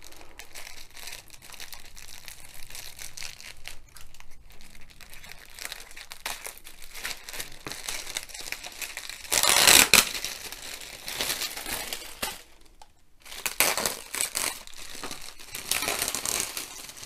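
Clear plastic wrapping crinkling and crackling as hands handle it and pull it back, in irregular bursts, the loudest about ten seconds in and several shorter ones after.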